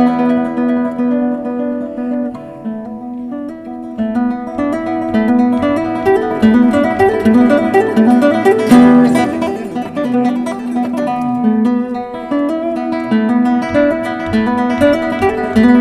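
Solo classical guitar played with the fingers: quick runs of plucked notes over a steady low bass note. A softer passage about two to four seconds in gives way to louder runs, with a sharply struck chord a little before halfway.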